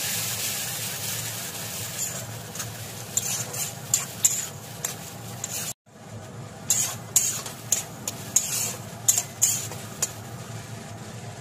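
Spice paste frying in hot oil with onions and tomatoes in a metal kadai, sizzling steadily, loudest just as the paste goes in. A flat spatula then stirs and scrapes the pan in quick strokes, with a brief break about halfway through.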